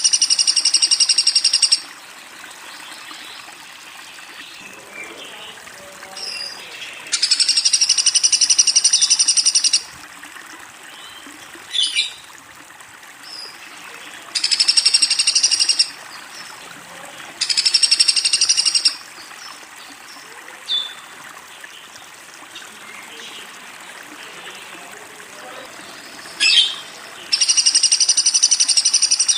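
Woodpecker calling: five bursts of a rapid, high-pitched rattling trill, each lasting two to three seconds, with a couple of short single chirps in the pauses between them.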